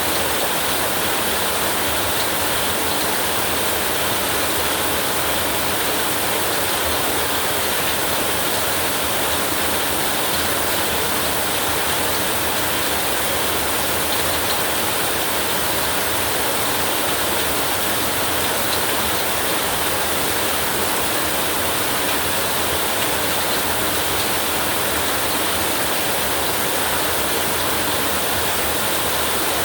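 Heavy, torrential rain falling steadily, an even hiss with no let-up and no thunder.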